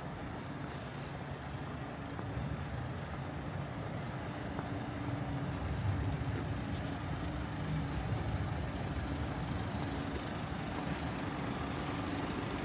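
Engine of a heavy vehicle running steadily: a low rumble with a faint steady hum, growing slightly louder over the first few seconds.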